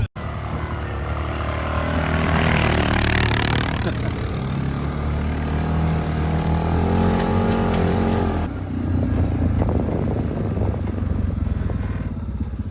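ATV engine running under way, its pitch climbing as it accelerates between about four and eight seconds in, over a rushing haze of wind and motion noise.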